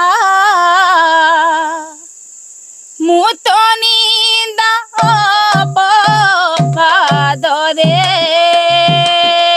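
A woman singing an Odia kirtan devotional melody in long, ornamented notes. The singing breaks off for about a second, starting two seconds in, then resumes. From about five seconds in a low beat comes in, about two strokes a second.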